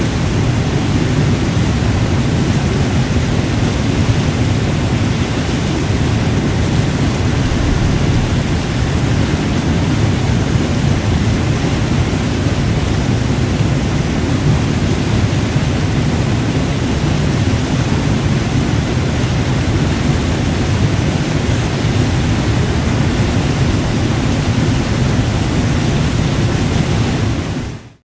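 Waterfall pouring down a rock face onto boulders: a loud, steady rush of falling water, fading out right at the end.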